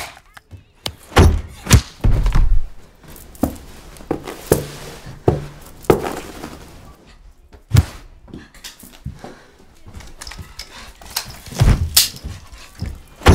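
Repeated thuds and blows of a physical fight between people. The sharp knocks come irregularly: a loud run of them about a second in, single ones through the middle, and another loud pair near the end.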